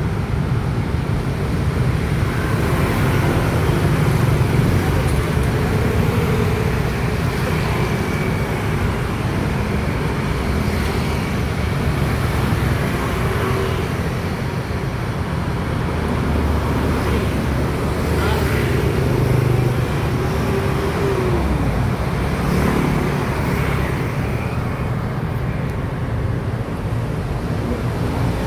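Steady road traffic noise: vehicle engines and tyre rumble running on without a break.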